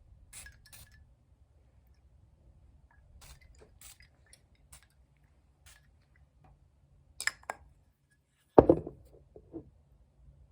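Scattered light clicks and clinks of small hard objects being handled, with two sharper clicks about seven seconds in and a louder knock shortly after eight seconds, followed by a few softer taps.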